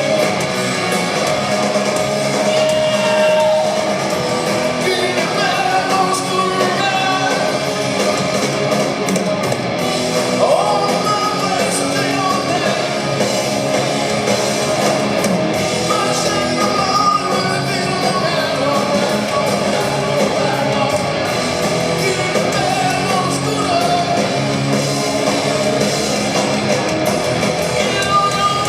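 Hard rock band playing live through a concert PA: electric guitars and drums with a voice singing over them, recorded from the audience.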